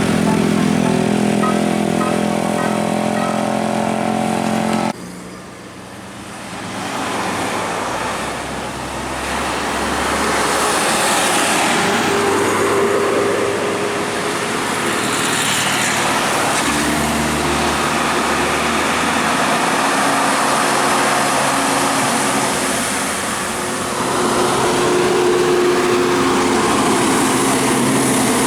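A multi-tone bus horn (telolet/basuri) playing a tune for about five seconds, then cutting off suddenly. After that, road traffic: heavy vehicles pass one after another with engine and tyre noise.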